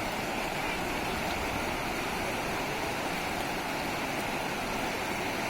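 Floodwater rushing steadily, an even unbroken roar of flowing water.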